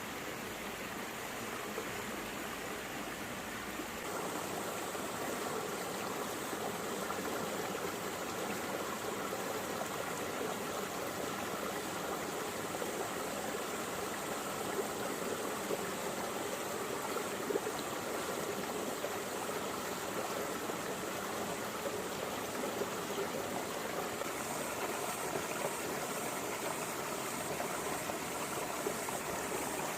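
Shallow stream of water flowing and splashing over rocks and stones, a steady babble. About four seconds in the deep rumble drops out and the sound turns slightly louder and brighter.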